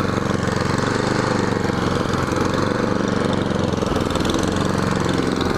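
Toro snowblower engine running steadily and smoothly, warmed up.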